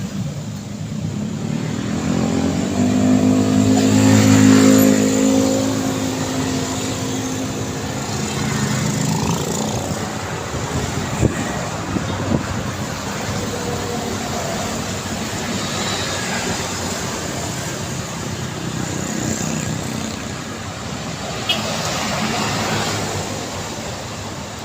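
Busy road traffic with vehicles passing continuously. One vehicle's engine drones louder as it passes, loudest about four seconds in. A couple of short sharp knocks are heard around the middle.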